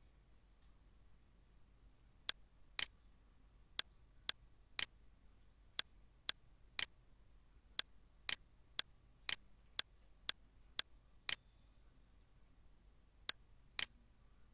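Computer mouse button clicks, sharp and separate, about eighteen of them, many half a second apart in runs of two to seven, over a faint steady low hum.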